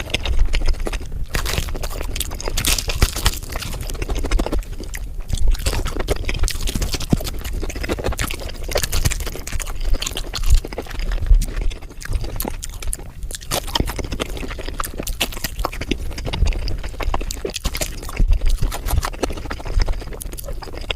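Close-miked chewing and crunching of crispy fried chicken: a dense, irregular run of crisp crackles as the breading is bitten and chewed.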